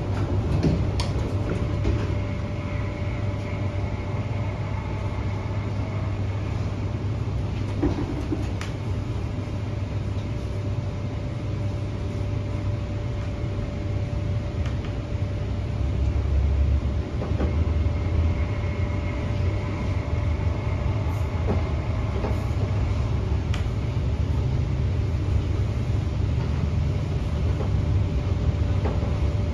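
Hyundai Rotem K-Train electric multiple unit heard from inside the carriage while running: a steady low rumble with a constant hum over it, growing a little louder from about sixteen seconds in.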